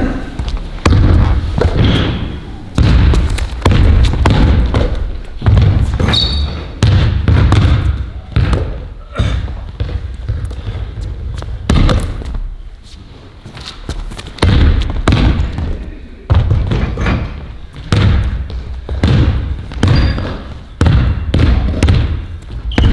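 A basketball bouncing on a hard gym floor: loud single thumps every second or two, each with a short echo, and a lull about halfway through.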